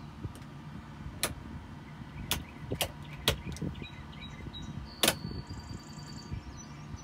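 Several sharp clicks of dash rocker switches being pressed on a 2020 Polaris General UTV, the loudest about five seconds in, over a steady low hum.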